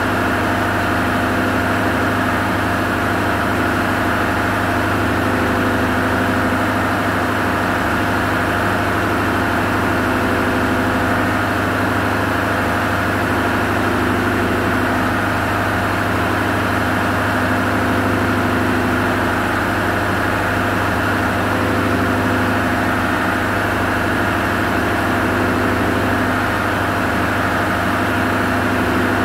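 Diesel machinery in a ship's engine room running with a steady, unchanging drone.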